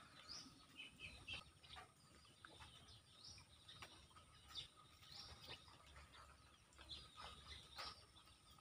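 Faint, scattered bird chirps: short high calls, each sliding quickly down in pitch, coming irregularly a second or so apart over quiet outdoor background.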